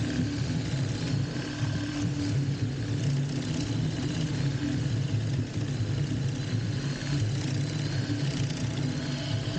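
Steady low mechanical rumble with a constant hum running through, like a motor running, with no change in pace.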